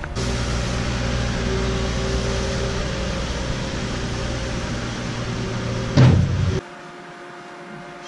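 Skid steer loader's engine running steadily while its bucket dumps sawdust bedding, surging louder about six seconds in, then giving way abruptly to a low steady hum.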